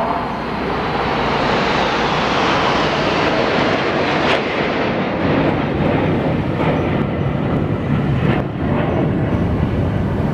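Military aircraft passing overhead: a rushing roar that swells over the first couple of seconds, then its higher part slowly fades while a deeper rumble carries on.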